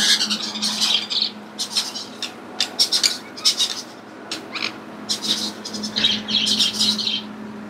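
Small birds chirping over and over in quick, busy calls, with a steady low hum underneath.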